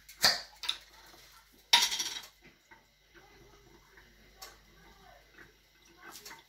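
Kitchen utensils and dishes clinking and knocking a few times, the loudest knock a little under two seconds in.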